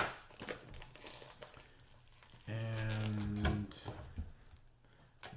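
Plastic wrap crinkling and rustling as a block of cheese is unwrapped, with a sharp tap at the very start. About two and a half seconds in, a low steady hum holds for about a second.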